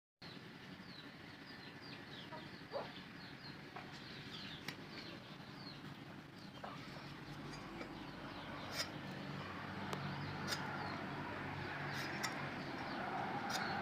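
Faint outdoor birdsong: small birds chirping over and over in short, falling chirps, with a few sharp clicks among them.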